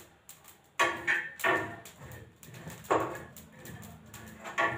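Several sharp metal knocks and scrapes of a spatula on an iron tava as rotis are turned.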